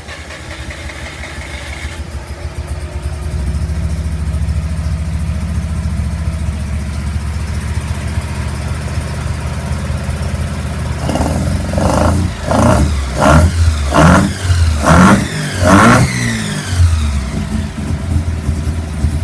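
1981 Mazda RX-7's 12A rotary engine, with a Weber carburettor and extractors, running just after starting. It settles into a steady Weber type rumble, then a little over halfway through it is blipped six or seven times in quick succession, the revs rising and falling each time, before dropping back to idle. The engine has not run for a long time, and the owner says it needs a good tune and probably a set of plugs.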